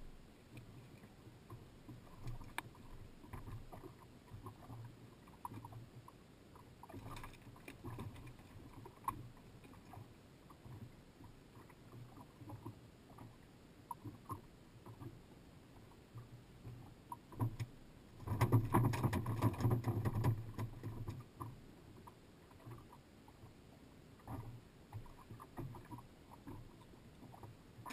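Light knocks and clatter of handling on a small fishing boat's deck, over faint water moving against the hull. About two-thirds of the way through comes a louder stretch of rapid rattling and knocking lasting a couple of seconds.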